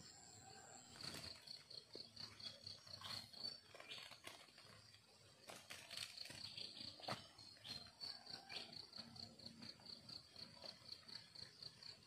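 Faint insect chirping, a steady high-pitched pulse about five times a second, with scattered faint taps and clicks.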